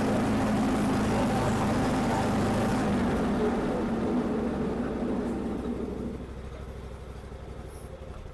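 Dixon Ram ZTR zero-turn mower running steadily on a test run after new bearings were fitted in its cast-iron blade spindle, then winding down over the last few seconds. The mechanic's verdict is that it sounds really good.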